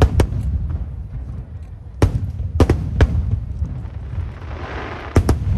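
Aerial fireworks shells bursting overhead: sharp bangs in clusters of two or three, over a continuous low rumble, with a hissing crackle swelling just before the last pair of bangs.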